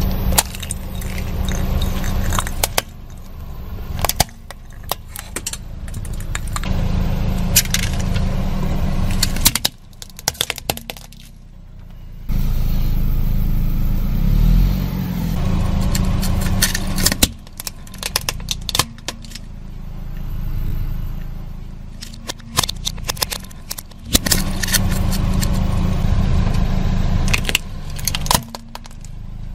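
A car tyre rolling slowly over small plastic toys, with many sharp cracks, snaps and crunches of breaking plastic and gravel over the low rumble of the car running, in several separate takes.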